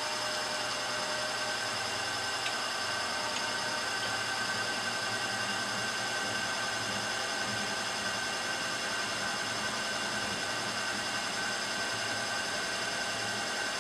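Milling machine spindle running steadily, a steady whine over a hiss, while cutting a quarter-inch hole in a bronze crank web.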